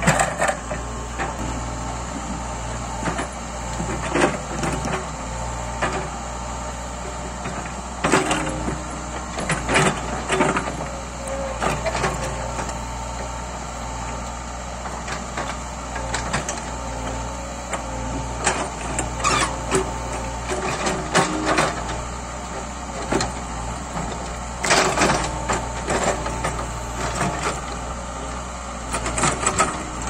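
Caterpillar backhoe loader's diesel engine running steadily under load while the backhoe digs, with irregular clanks and knocks of the bucket striking rock and soil.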